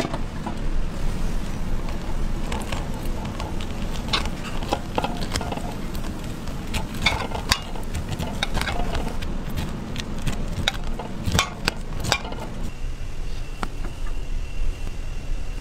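Corn kernels being pried off the cob by gloved hands, giving irregular clicks and cracks over a steady low rumble.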